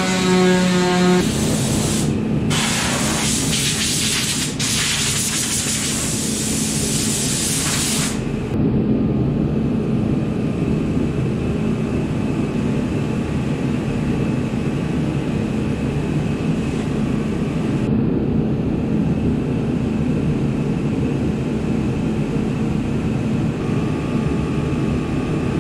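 Random orbital sander running on sheet steel, stopping about a second in. A loud hiss with two short breaks follows until about eight seconds in, then a steady machine drone runs on.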